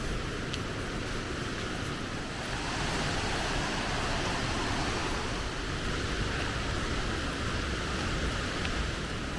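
Steady rush of water washing along a lake boat's hull as it cruises, mixed with wind.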